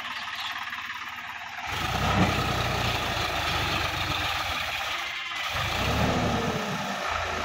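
Sonalika DI-50 RX tractor's diesel engine running while it tows a trolley over a dirt track: a lower, steady run at first, then the engine opens up and gets louder under load a little under two seconds in, easing briefly just past five seconds.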